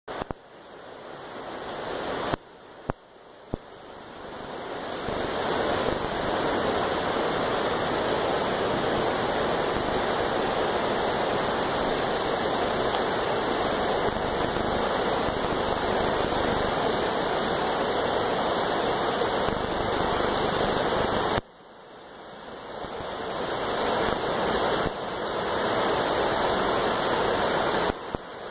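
Shallow, rocky creek water rushing over stones in riffles, a steady rush. It swells in over the first few seconds, cuts out suddenly about three-quarters of the way through, and fades back up over a few seconds.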